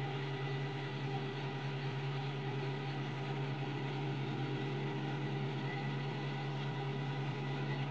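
Truck-mounted concrete pump running steadily, with an even engine drone and a low hum while its boom unfolds.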